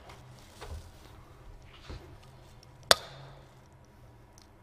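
A single sharp crack about three seconds in: an egg being knocked against the rim of a mixing bowl to break it. A few faint knocks come before it.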